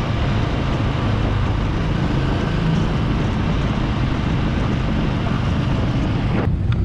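Yamaha SR500's 499 cc air-cooled single-cylinder four-stroke engine, breathing through a Sims Craft aftermarket exhaust, running steadily while the bike is ridden along the road. It cuts off abruptly just before the end.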